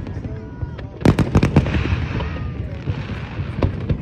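Aerial fireworks display: a quick volley of shell bursts about a second in, followed by a crackling shower, with another few bangs near the end.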